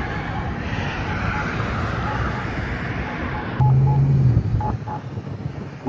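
Campbell Pedsafety accessible crosswalk push button sounding its wait-phase locator beep, short tones about once a second, over passing road traffic. About three and a half seconds in, a loud low hum comes in briefly.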